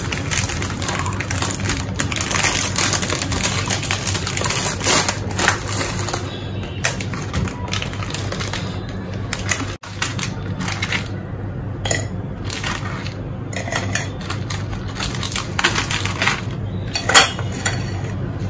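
Foil wrapper of a roll of digestive biscuits crinkling as it is torn open and handled, then biscuits set down on a ceramic plate with light clicks and taps, over a steady low hum.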